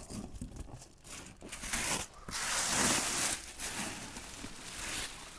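Clear plastic packaging film crinkling and rustling as it is pulled out of a cardboard carton, starting about a second and a half in and loudest around the middle.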